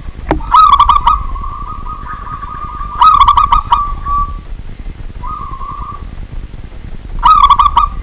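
Zebra dove (perkutut) singing: three loud phrases of quick, rippling cooing notes, a few seconds apart, with softer drawn-out notes between them.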